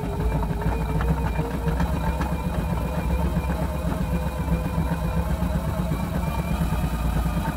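Spin bike being pedalled, its flywheel turning a 3 kW electric-bike hub motor by contact with the motor's tyre: a steady whirring rumble with a hum held at an even pitch.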